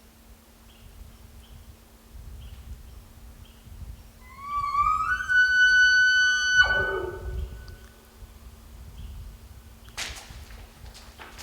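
An elk bugle: a whistle that rises in pitch, holds for about two seconds and breaks off into a few low grunts. A few sharp cracks follow near the end.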